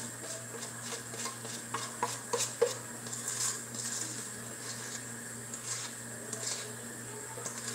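A kitchen utensil clinking and scraping against a bowl as thick batter is scraped out into a baking pan. A few sharper knocks come about two to two and a half seconds in, followed by softer scrapes and ticks.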